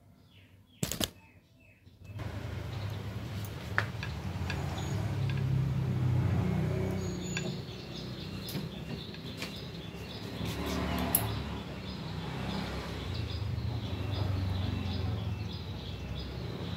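A sharp click about a second in, then a steady low background rumble with faint bird chirps and a few small clicks from handling a brass lighter.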